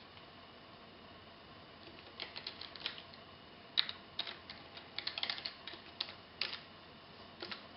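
Typing on a computer keyboard: irregular key clicks, singly and in quick runs, starting about two seconds in, over a faint steady hum.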